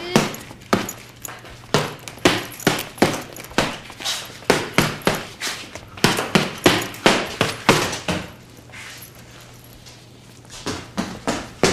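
Punches landing on a boxing punching bag: a run of sharp slapping thuds, about two to three a second, pausing for a couple of seconds near the end before starting again.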